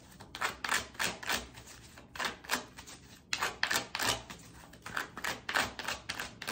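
Tarot cards being handled and shuffled: a run of short, irregular clicks and taps, about two to four a second.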